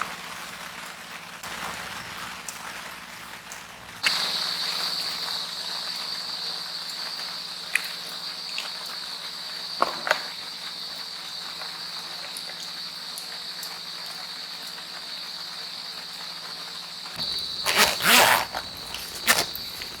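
Insect trill: one steady high-pitched tone that starts suddenly about four seconds in and holds over a soft hiss. Near the end come several loud knocks and rustles of handling.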